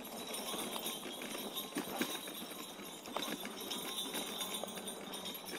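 Bells on an electric trike jingling and clinking irregularly as it rolls over a bumpy, rough trail, with scattered small knocks and rattles from the bumps.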